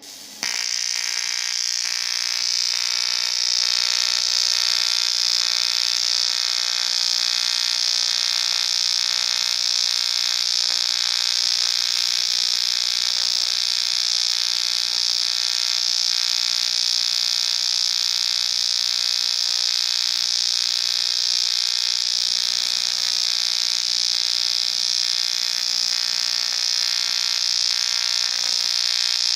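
Welding arc on aluminium, a steady electric buzz that strikes up suddenly and holds evenly for the whole weld.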